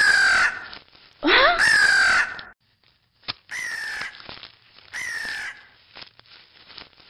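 A crow cawing four times, the calls a second or two apart, with the last two fainter than the first two.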